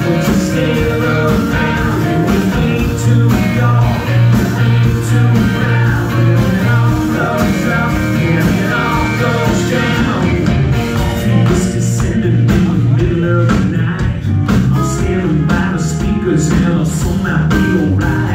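Live rock band playing a song, with electric guitars, bass, keyboard and drums keeping a steady beat, and a man singing the lead vocal.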